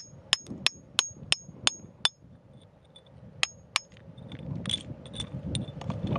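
A pointed metal digging tool striking stony, gravelly ground. Seven sharp metallic strikes come about three a second, each with a short high ring. After a pause there are two more, then lighter clinks and scrapes of loose stones.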